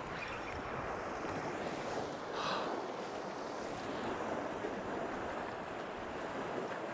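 Sea surf washing over shoreline rocks, a steady rush of water noise that grows briefly louder about two and a half seconds in.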